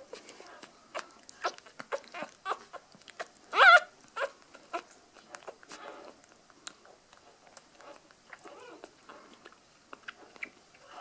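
Newborn puppy suckling from a bottle teat: quick wet smacking and sucking clicks throughout, with one short high squeal that rises and wavers about three and a half seconds in, the loudest sound.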